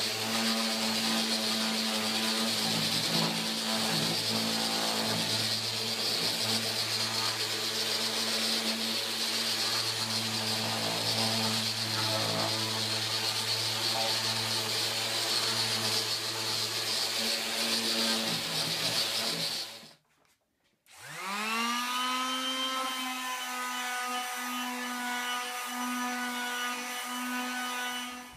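Electric sander running steadily on an oak tabletop. About two-thirds through it cuts out for about a second, then starts again and winds up to speed.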